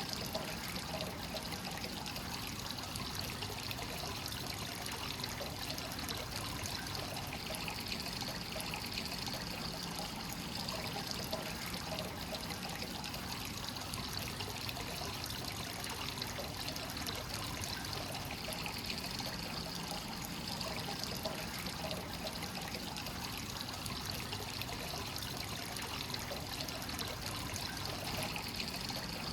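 Hot spring water flowing continuously into a rock bath, trickling and splashing steadily.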